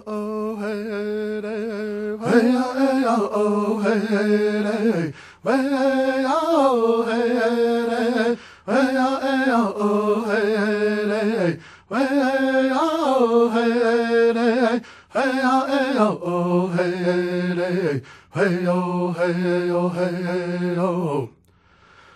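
A single voice sings an unaccompanied Native American-style chant. It comes in phrases of about three seconds, each dipping in pitch toward its end, with brief breaths between them.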